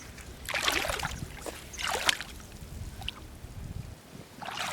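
Three short splashing scrapes of wet sand and shallow seawater, the first about half a second in and lasting under a second, the second around two seconds in, the last near the end, as shellfish are dug out by hand at low tide.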